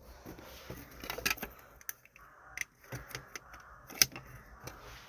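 Scattered light clicks and knocks at irregular intervals, the sharpest one about four seconds in.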